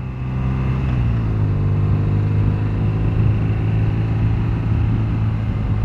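BMW R1200GS motorcycle's boxer-twin engine running under way at a steady road speed, picking up slightly in the first second and then holding an even note.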